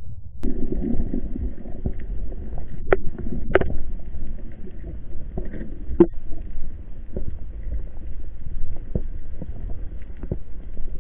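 Underwater recording over a coral reef: a steady low rumble of water moving against the camera housing, broken by scattered sharp clicks and taps, a few louder ones in the first half.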